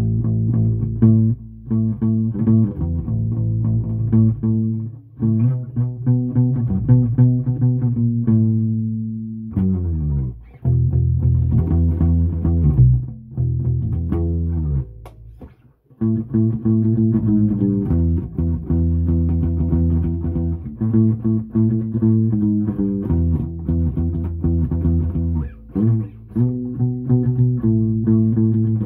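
Hollow-body electric bass guitar played solo, an improvised line of plucked notes with a couple of slides down in pitch about ten seconds in and a brief stop about halfway.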